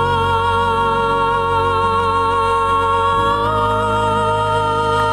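A man and a woman singing a duet, holding one long note with vibrato over a sustained instrumental accompaniment; the backing chord changes about three seconds in.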